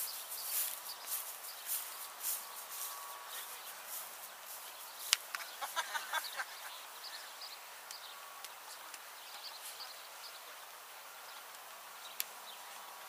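Outdoor ambience on an open field: a steady high hiss with scattered clicks, a sharp click about five seconds in, then a short run of rapid bird-like chirps lasting about a second.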